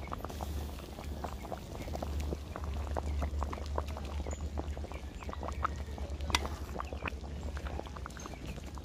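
Pot of thick bean and pigtail soup at a rolling boil, its bubbles popping and blubbing irregularly several times a second over a low steady rumble.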